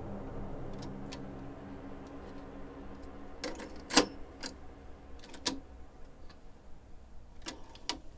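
Cassette deck's tape door and piano-key transport buttons clicking as a cassette is swapped: about eight sharp plastic clicks and clacks, the loudest about four seconds in.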